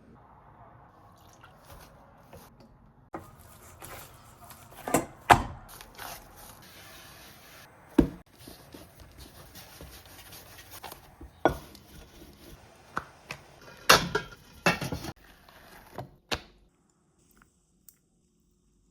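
Cookware and utensils being handled in a kitchen: a run of scattered knocks and clinks, several of them sharp, over a faint hiss, falling nearly silent near the end.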